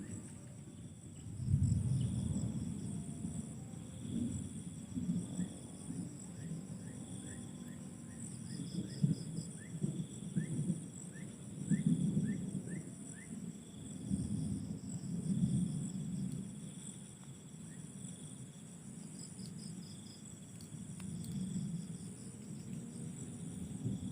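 Crickets and other night insects chirring steadily in several high pulsing layers, with a run of about ten short rising chirps in the middle. An uneven low rumble comes and goes throughout and is the loudest part.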